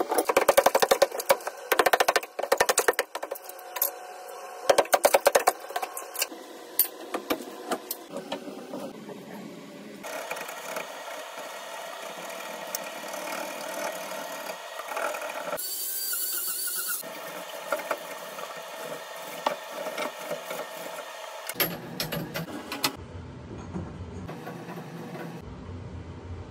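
Tools working on plastic plumbing pipe: a quick run of sharp clicks and knocks, then steadier working noise with scattered knocks, broken by abrupt cuts between short clips.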